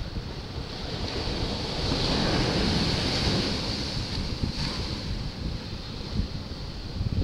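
Ocean surf washing over rocks, swelling about two seconds in and easing off, with wind rumbling on the microphone.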